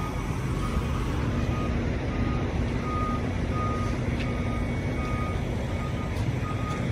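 Tractor-trailer backing up, its reversing alarm beeping at a steady pace of about two beeps a second over the low, steady running of the diesel engine.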